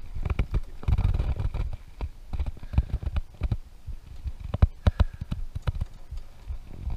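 Irregular knocks and clicks, the sharpest few bunched about four and a half to five seconds in, over a low rumble.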